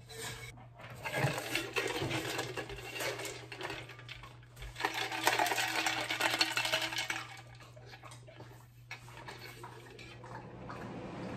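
Water running from a kitchen tap into a large tumbler, with a few clinks of the cup and its lid. The flow stops about seven seconds in.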